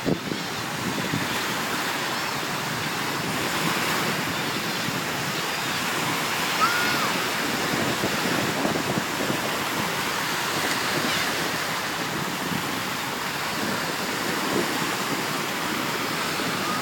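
Small Gulf waves breaking and washing up the beach: a steady rush of surf that swells and eases.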